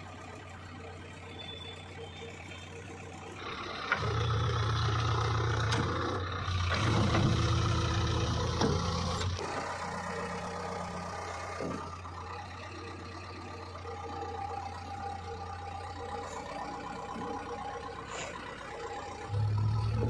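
JCB 3DX backhoe loader's diesel engine running steadily, revving up from about four seconds in for some five seconds, dropping back to a steady run, and revving again near the end.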